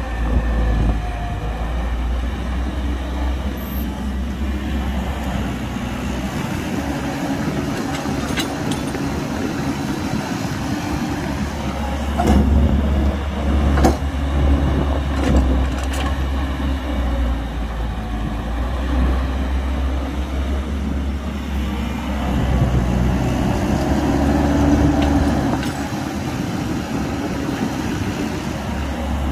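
Heavy diesel engines of an excavator and dump truck running steadily under load while dirt is dug and loaded, with a few sharp knocks and clanks in the middle.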